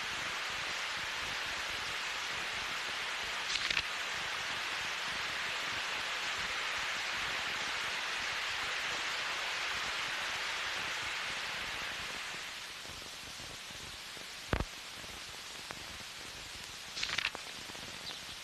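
A steady hiss of noise that drops in level about twelve seconds in, with a single sharp click about two seconds later.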